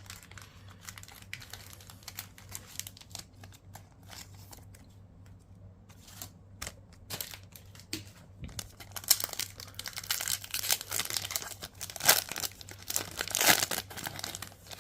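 Light scattered clicks and rustles of trading cards being handled, then from about nine seconds in the crinkling and tearing of a booster pack wrapper being ripped open.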